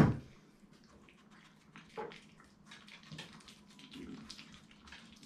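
A short knock right at the start, then small dogs shifting about on a wooden floor inside a wire pen: faint, scattered claw clicks and small rattles.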